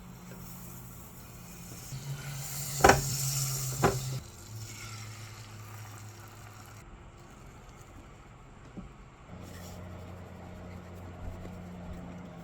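Food sizzling in a frying pan, loudest about two to four seconds in, with two sharp knocks about a second apart around the three-second mark, over a low steady hum.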